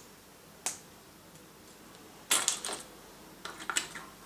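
Small metal screws and cooler mounting parts clinking and rattling in a cardboard box as a hand rummages through them: a single click under a second in, a burst of clinks about two seconds in and a few more near the end.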